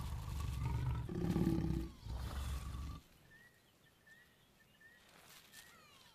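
Lions growling during mating: loud, low growls in two stretches that cut off abruptly about three seconds in. After that only faint chirping remains.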